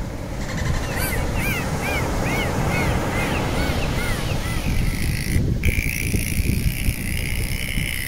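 Dolphins calling underwater: a run of about ten short arching chirps, roughly three a second, then a longer steady whistle, over a steady low rush of water noise.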